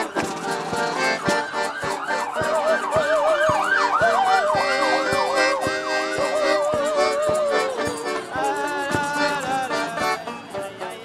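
A marching street band playing: held accordion notes, banjo and regular percussion hits. Over it, a siren-like wail sweeps rapidly up and down for a few seconds, starting about two seconds in.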